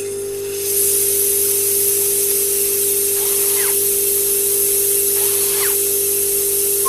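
GONK power droid sound effect: a steady electrical hum, with a long even hiss of venting air that starts about half a second in, and a couple of faint short chirps partway through.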